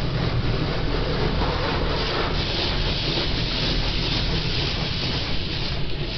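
Touchless car wash spraying high-pressure water over the car, heard from inside the cabin as a steady rushing hiss over a low rumble. The hiss gets brighter about two seconds in, as the spray sheets across the windshield.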